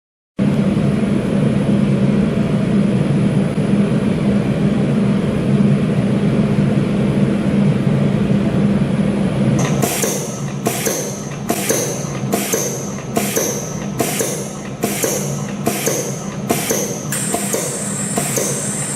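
Background music: a sustained backing, joined about ten seconds in by a regular drum beat of about four hits every three seconds.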